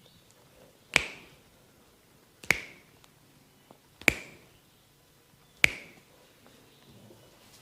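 Four sharp percussive strikes of a massage, evenly spaced about one and a half seconds apart, each with a brief ringing decay.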